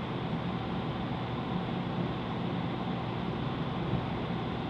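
Steady rushing background noise with a low hum underneath, even throughout, with no distinct knocks or clicks.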